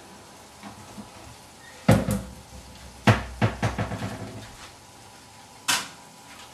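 Kitchen clatter of hard objects being handled: a sharp knock about two seconds in, a quick run of clattering knocks about a second later, and one more knock near the end.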